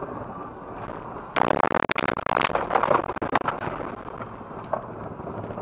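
Vehicle collision picked up by a dash cam inside the car: a sudden burst of loud crunching impacts and cracks about a second and a half in, lasting about two seconds, over steady road noise.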